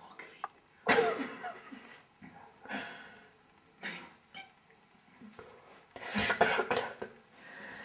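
A person coughing in a few short, separate bursts, with a busier cluster of coughs near the end.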